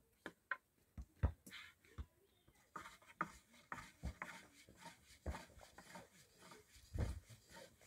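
Irregular light knocks, taps and rubbing, as of objects being handled in a small room; the sharpest knock comes about a second in and a duller thump near the end.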